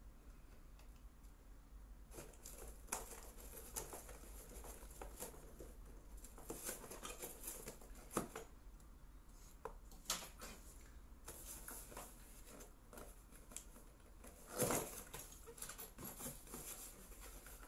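Faint rustling and handling of cardboard and plastic packaging, with scattered small clicks and scrapes and one louder rustle about fifteen seconds in.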